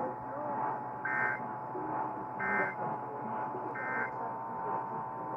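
Emergency Alert System end-of-message data bursts on the radio: three short, buzzy squawks of two-tone digital code, about 1.3 seconds apart, marking the close of an alert.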